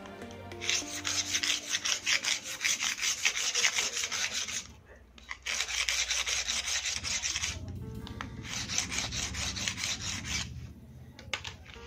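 Knife blade being sharpened on a flat metal file: quick back-and-forth rasping strokes of metal on metal, in three runs with two short pauses, stopping shortly before the end.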